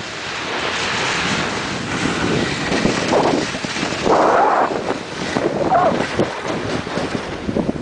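Wind rushing over the microphone of a moving skier, with skis scraping on snow in louder patches about three and four seconds in.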